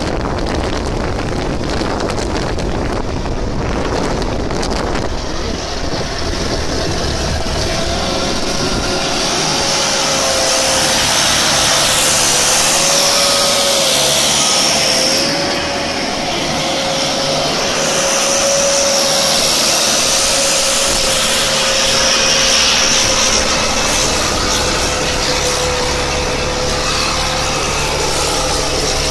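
A motor or engine running steadily, with a wavering whine that sets in about eight seconds in.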